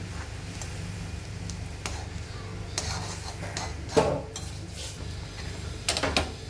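Perforated steel ladle scraping and clinking against an aluminium kadai as mashed chana dal is stirred into bubbling syrup. A steady low bubbling runs underneath, with scattered clinks; the loudest comes about four seconds in and a quick few come near the end.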